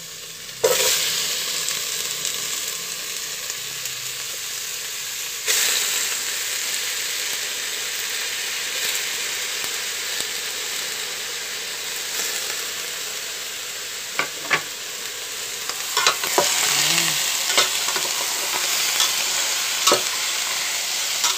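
Raw chicken pieces sizzling as they are dropped into a hot aluminium pot of sautéing ginger, garlic, onion and tomato; the sizzle jumps up about half a second in and again about five seconds in as more pieces go in. In the second half, sharp knocks and scrapes of a ladle against the pot as the chicken is stirred through the sizzle.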